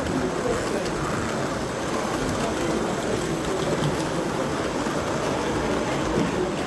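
Steady, unbroken background noise of a busy exhibition hall, with no single sound standing out.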